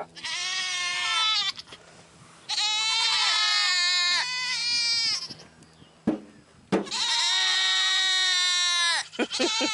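Goat kids bleating: three long, loud, wavering calls. This is the crying of buck kids newly weaned and separated from their mothers.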